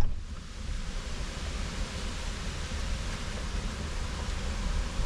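Steady low rumble and even hiss of a car running, heard from inside the cabin.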